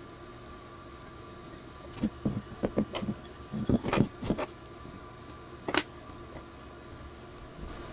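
A run of short, light clicks and knocks, about a dozen in two seconds with one more a little later, from small parts being handled and set down during assembly, over a steady hum.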